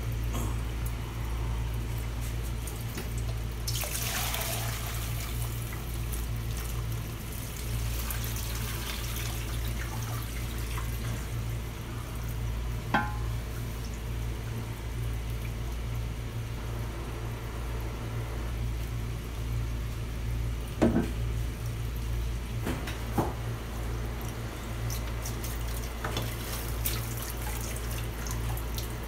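Kitchen tap running steadily into a perforated aluminium steamer pot of cooked spaghetti in the sink, with a louder gush of poured water about four seconds in and a few light metal clanks from the pots.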